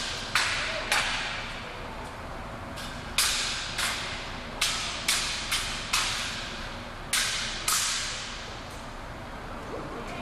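Spear and broadsword striking each other in a two-man weapons set: about ten sharp clacks at irregular intervals, several in quick pairs, each with a brief ringing tail.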